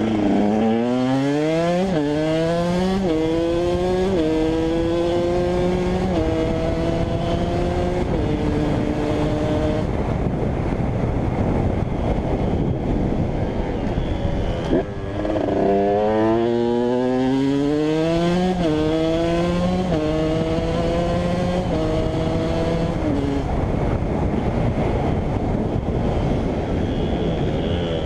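KTM 125 EXC two-stroke single-cylinder engine accelerating hard up through the gears twice: each time the note climbs, drops at a shift and climbs again, about five shifts per run. Between the runs the engine note fades under a steady rushing noise.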